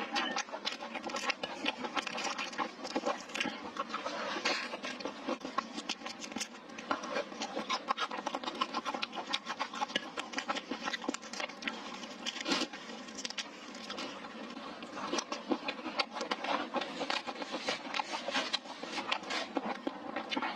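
Close-miked mukbang eating sounds of spicy stir-fried hot pot and rice: continuous wet chewing with many quick small clicks and scrapes of utensils.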